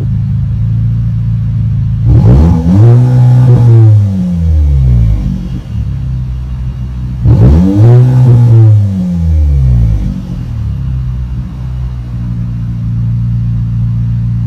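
Volkswagen Golf GTI's turbocharged four-cylinder engine idling, revved twice about five seconds apart: each time the pitch climbs quickly, then falls back to idle over a couple of seconds.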